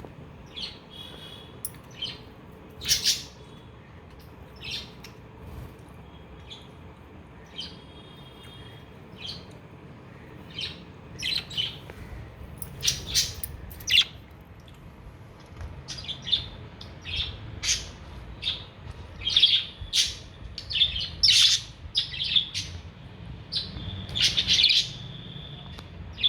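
Pet budgerigars chirping in short, sharp calls, spaced out at first and coming thick and fast in the second half.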